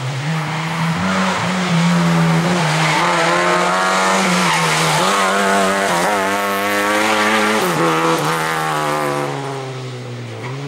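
Lada 2105 rally car's four-cylinder engine driven hard, its pitch climbing and dropping sharply several times as it shifts gears, then easing off near the end.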